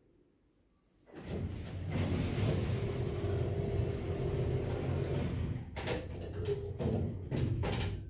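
Tepper passenger lift operating from about a second in: the sliding car doors and machinery run with a steady low hum, and several sharp clicks and clunks come near the end.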